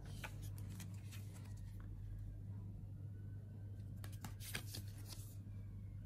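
Oracle cards being handled: faint rustles and slides of card stock as cards are lifted off the decks, in two short flurries, near the start and again about four seconds in, over a steady low hum.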